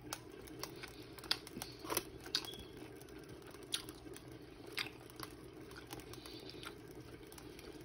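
Faint scattered clicks and squishes as barbecue sauce is squeezed from a plastic squeeze bottle onto a smoked turkey leg in aluminum foil, over a steady low hum.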